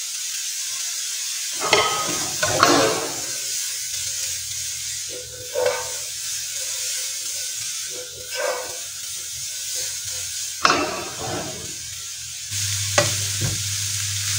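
Mixed vegetables (broccoli, bell peppers and carrots) sizzling in a hot frying pan, with the wooden spoon scraping and the pan being tossed every couple of seconds as they are stir-fried. A low steady hum joins near the end.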